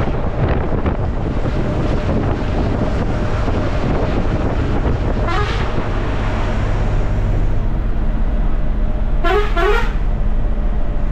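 Steady drone of an Ashok Leyland AC sleeper bus on the move, heard from inside the cabin, with vehicle horn honks: one at the start, one about halfway through, and two quick ones near the end.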